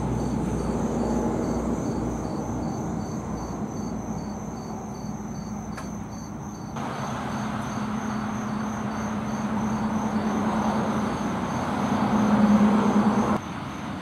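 Steady hum of road traffic, swelling as a vehicle passes and cutting off suddenly near the end, with insects chirping faintly in an even, fast pulse.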